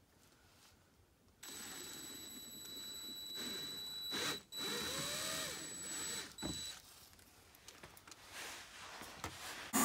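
Cordless drill boring pilot holes through the plastic underside of a car's rear bumper, its motor running with a high steady whine. It runs in two stretches, a brief stop about halfway through, and stops for good a little after that.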